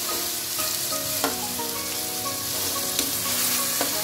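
Beef pieces sizzling in hot oil in a metal pot while being stirred with a steel spoon, which scrapes against the pot and knocks on it sharply a few times.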